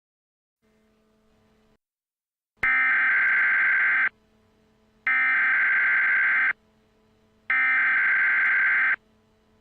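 Emergency Alert System SAME header: three bursts of screeching digital data tones, each about a second and a half long with about a second's pause between them. This is the coded header that opens an EAS alert, with a faint steady hum underneath.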